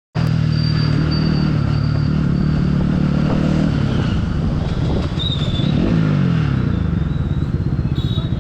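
Bajaj Pulsar NS200 single-cylinder engine running under way. The engine note holds steady, falls as the revs drop about halfway through, then settles again.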